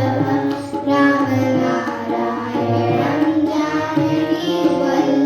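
Children singing a Krishna bhajan together over musical accompaniment, the sung lines held and changing pitch continuously.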